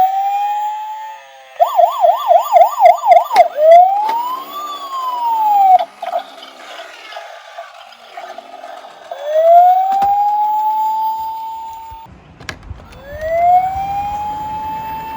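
Police car siren: a rising wail, then a fast warbling yelp about five times a second, then a slow rise and fall. Two more rising wails follow later, with a few sharp clicks in between.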